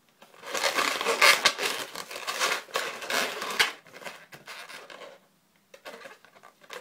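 Latex modelling balloons (260s) rubbing and scraping against each other and the hands as a bubble is twisted and wrapped around a pinch twist: about four seconds of dense rubbing, then a few faint rustles.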